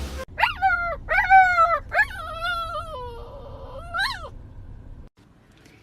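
A pet animal's high-pitched cries: four drawn-out calls that bend in pitch, the third the longest and the last rising sharply.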